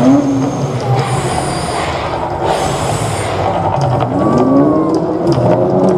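Mirage volcano show eruption: a loud, deep, continuous rumble from the show's sound system, with rushing blasts of the gas fire jets about one and two and a half seconds in and tones gliding up and down over it in the second half.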